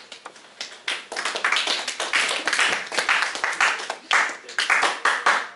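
A small group applauding, many hands clapping. It starts about half a second in, gets louder within the first second and a half, and cuts off suddenly near the end.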